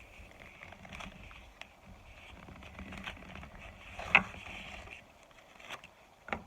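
Handling noises from a box of freshly microwaved cornstarch being opened and handled: scattered light taps and clicks, with one sharper click about four seconds in and another near the end.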